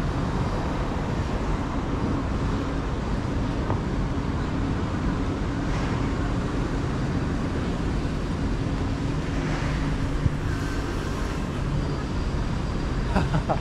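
Busy city street ambience: a steady rumble of road traffic.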